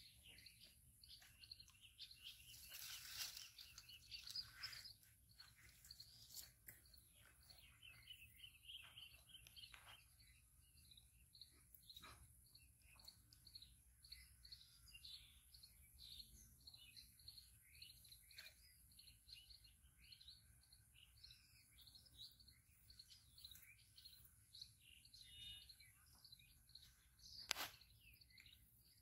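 Faint chorus of small birds chirping and twittering continuously, with two sharp clicks, one about twelve seconds in and a louder one near the end.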